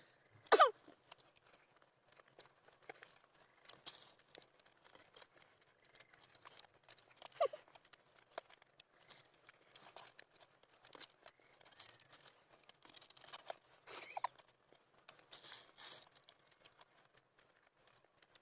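Scattered quiet clicks and scrapes of spoons on plates as two people eat rice quickly, with a few brief murmurs.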